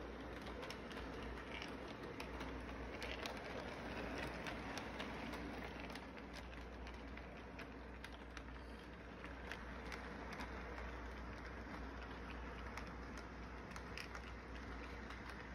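Toy electric train running around its track: a steady whirring with many scattered sharp clicks from the wheels on the rails.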